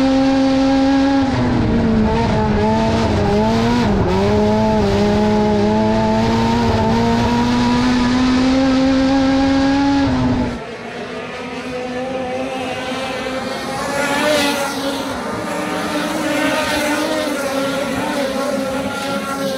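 In-car sound of a front-wheel-drive dirt-track race car's engine running hard at high revs, dipping and wavering about one to four seconds in, then climbing steadily. About ten seconds in it cuts to a quieter, more distant sound of several race cars running laps on the dirt oval, swelling as cars pass.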